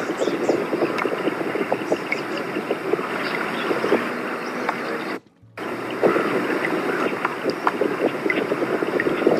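Played-back field recording for an African fish eagle call, taken by water: steady water-and-wind noise with scattered faint calls. It cuts out briefly about five seconds in, where the recording restarts.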